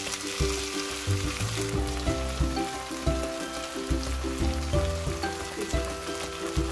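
Kimchi sizzling in hot scallion oil in a wok, loudest in the first second or two after it goes in, as a silicone spatula stirs it. Background music with a bass beat plays over the sizzle.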